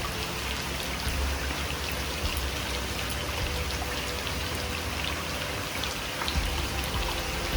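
Steady rainfall, with individual drops landing close by as short distinct ticks over the even hiss of the rain.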